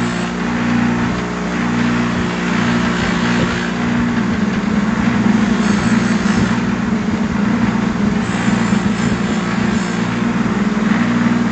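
Baldor bench buffer running, its white-rouge-loaded cloth wheel polishing a stainless steel percolator lid piece pressed against it: a steady motor hum under the rushing friction of metal on the spinning buff, a little louder and rougher from about halfway.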